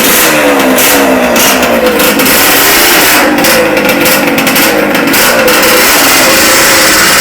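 Yamaha RD two-stroke motorcycle engine revving hard and very loud, its pitch rising and falling again and again as the throttle is blipped.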